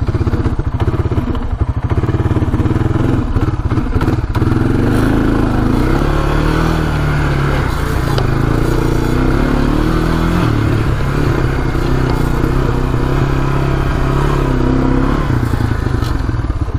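A 1998 Honda Fourtrax 300 ATV's single-cylinder four-stroke engine running under way on a test drive. Its pitch rises and falls as the speed changes, a little choppier in the first few seconds.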